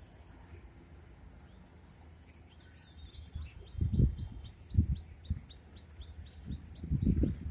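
A small bird chirping repeatedly in short high calls, about three a second, starting a couple of seconds in. Several low thumps, the loudest sounds, come in the second half.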